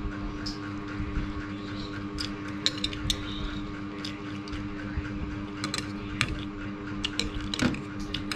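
Metal spoon and fork clinking and scraping against a plate and bowls while eating, in scattered sharp clicks that come thicker in the second half, over a steady hum.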